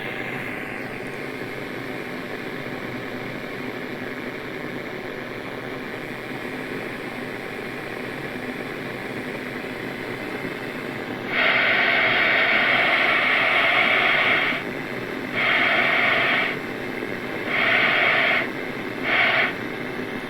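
Xiegu G90 transceiver's receiver hiss on FM, played through an external Bluetooth speaker, with no one speaking. About halfway through, a louder burst of harsh static comes in for about three seconds, followed by three shorter bursts.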